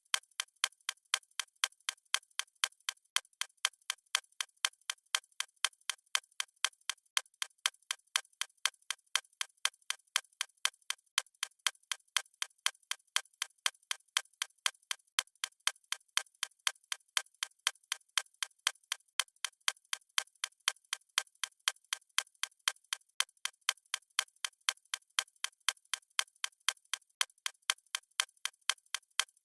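A watch ticking steadily: sharp, even clicks at a constant rapid rate, with nothing else heard.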